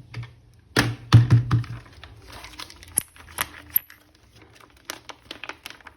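Plastic action figures and their packaging being handled: a quick cluster of knocks and clicks about a second in, then scattered light clicks and taps.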